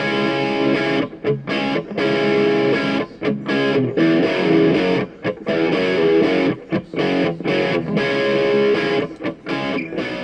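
Background music led by a distorted electric guitar, with a rhythmic, chopped pattern of stops.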